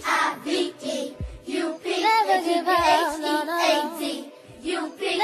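A song: a high singing voice over music, its melody wavering up and down.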